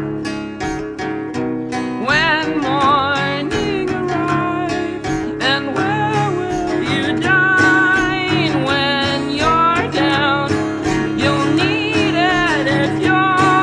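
Soundtrack music: strummed acoustic guitar keeping a steady rhythm, with a wavering melody line coming in about two seconds in.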